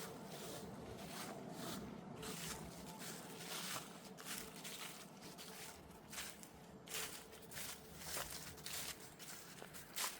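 Footsteps of a person walking outdoors, a soft crunch about every second, over a steady faint background hiss.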